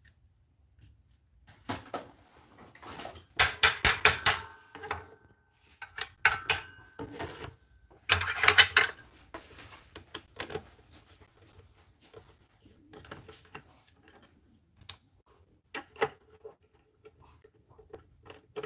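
A small metal-tipped hand tool clicking and scraping against an HP inkjet printhead's circuit board and plastic housing, with a quick run of about eight clicks three and a half seconds in, a scraping burst around eight seconds, and scattered light ticks.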